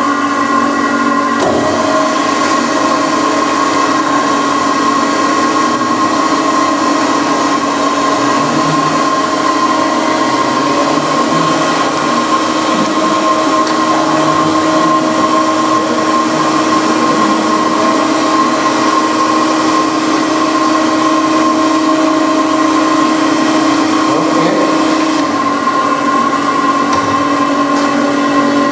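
Conventional surface grinding machine running: a steady motor whine with several constant tones, which shift slightly about a second and a half in and again a few seconds before the end.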